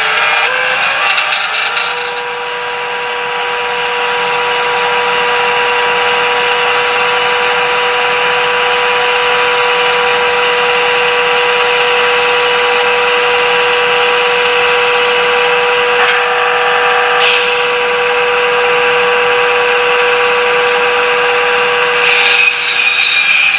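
HO-scale Jouef TGV Ouigo model train running, its small electric motor giving a steady whine with a constant tone. The tone drops out near the end.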